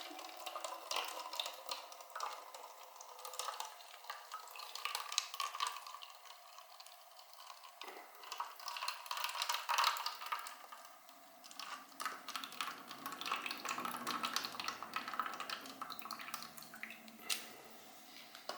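Old coolant trickling and dripping out of a Kawasaki KX65's cooling system into a drain pan, with scattered light clicks. The water is nasty and rust-coloured, the sign of a neglected cooling system.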